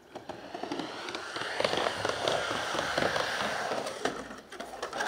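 Skateboard wheels rolling on a wooden mega ramp: a steady gritty rumble with crackling ticks that builds over the first second or so. It dips briefly near the end, followed by a sharp knock.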